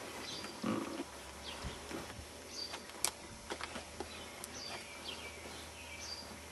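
Birds chirping and calling, many short high chirps scattered throughout, over faint outdoor background noise. A soft bump comes about two-thirds of a second in and a sharp click about three seconds in.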